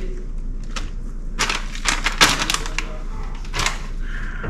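Crinkly plastic bag of shredded Parmesan being handled, crackling and rustling in several short spells, loudest a little past the middle.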